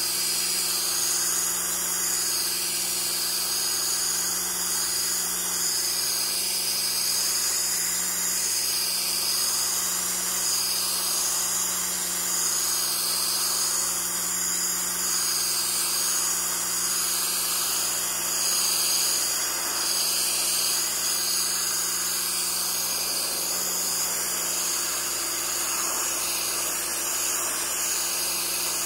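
Kärcher 1700 PSI electric pressure washer running steadily, with a constant hum, its jet of water hissing against an upturned canoe hull.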